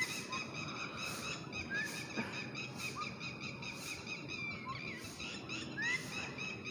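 Birds calling and chirping: short rising chirps every second or so over a dense, repeating high-pitched chatter.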